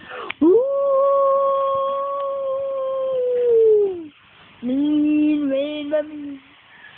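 A boy's voice holding a long, howl-like note that slides down at its end, then after a short gap a second, lower held note.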